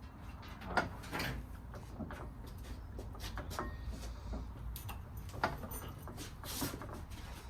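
Scattered light clicks and knocks of tools and metal parts being handled around the engine, over a low steady hum.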